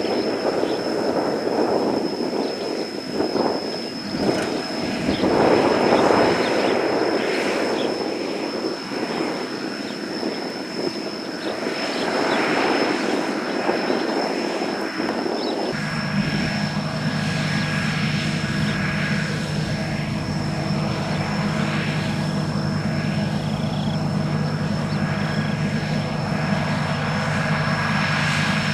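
Sakpattana SS-300 'Black Bird' combine harvester, with its five-cylinder 170 hp engine, running: at first an uneven, rushing mechanical noise, then, after an abrupt change about sixteen seconds in, a steady engine drone at a constant pitch.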